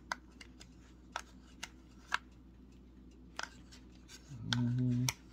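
Metal spoon scraping the pineapple topping out of a plastic cottage cheese cup's topping compartment, heard as a handful of separate sharp clicks and scrapes against the plastic. Near the end a man hums briefly on one pitch.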